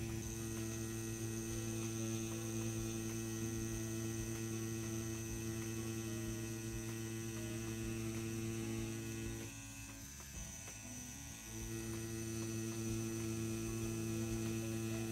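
CNC P6 rotary tattoo pen running at low voltage while lining on silicone practice skin: a steady motor hum. It drops quieter for about two seconds around ten seconds in, then picks up again.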